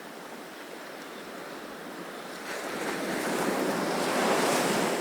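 Ocean surf on a beach: a steady wash of waves, with a wave surging in louder from about halfway through.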